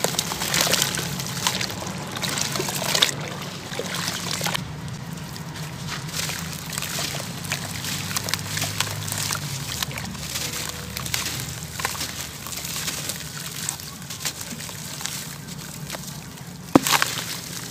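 Wet sand-cement chunks crumbling in the hands and breaking up in a basin of water: sloshing, dribbling and splashing as pieces and slurry drop back in, with crumbly crackles. A single sharp knock near the end is the loudest sound.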